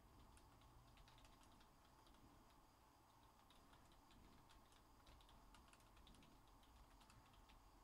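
Faint typing on a computer keyboard: scattered, irregular light key clicks over a low steady hum.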